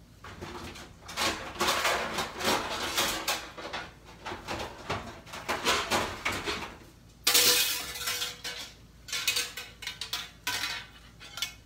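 Metal pan and wire rack clattering and clanking as they are handled, in irregular knocks. One louder clank about seven seconds in rings briefly.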